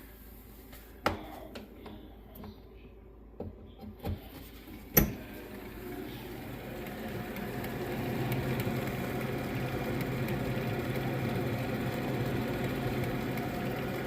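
Refrigerator fan motor starting up after a few handling clicks and a sharp click about five seconds in, rising over a couple of seconds to a steady hum. It runs with a little rubbing, the fan blade having been pushed closer to the motor base to stop it wobbling.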